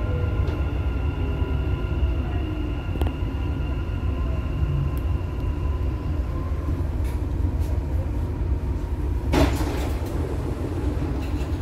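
Dubai Metro train running, heard from inside the front car: a steady rumble of wheels on rail, with a high whine from the electric motors that fades out a little past halfway. There is a faint click about three seconds in, and a short, louder clatter near the end.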